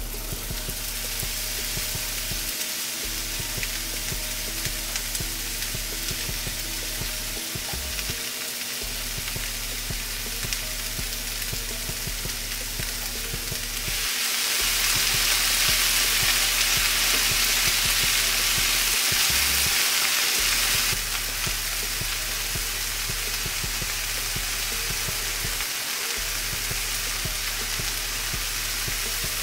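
Diced green bell peppers sizzling in hot oil in a nonstick skillet, a steady frying hiss. It grows louder for several seconds in the middle as they are stirred with a spatula, then settles back to a steady sizzle.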